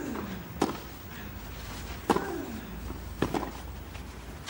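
A tennis ball struck back and forth in a rally on a clay court: sharp racket hits about every second to second and a half, with a ball bounce close before one of them. Some of the hits are followed by a player's short grunt, falling in pitch.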